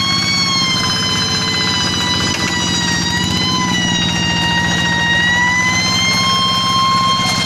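Rice-paddy tractor engine running while ploughing, with a loud, high-pitched whining 'nging' over its rapid low pulsing; the whine drifts slightly down and up in pitch.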